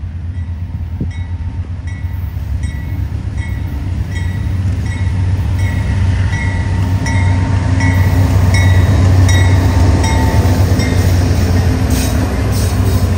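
Freight train with BNSF and CN diesel locomotives approaching and passing close by. A deep engine drone and rolling noise build in loudness and peak about two-thirds of the way through. Regular light clicks of wheels over the track repeat through it.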